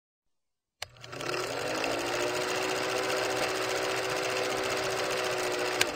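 Film projector running over a countdown leader: a steady, fast mechanical clatter with a motor hum that rises slightly as it starts about a second in, then holds steady, and a sharp click near the end.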